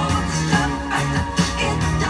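Rock music with a steady beat and a bass line.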